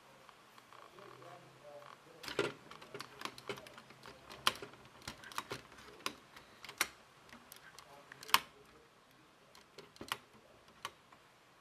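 Irregular sharp plastic clicks and clacks, as of Lego parts being handled and snapped against each other, starting about two seconds in, with the loudest click near the end.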